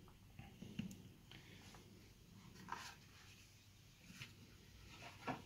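Faint handling sounds: a 70mai Pro Plus dash cam being lifted out of its cardboard box insert, with soft scrapes and a few light clicks, and a slightly louder knock near the end.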